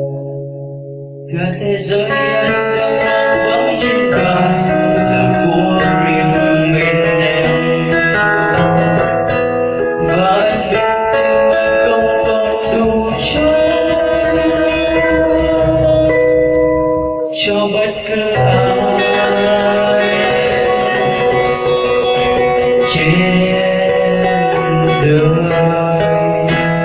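Acoustic guitar music: a passage of a ballad with no sung words. It is thin for about the first second, then fills out, and breaks off briefly about 17 seconds in.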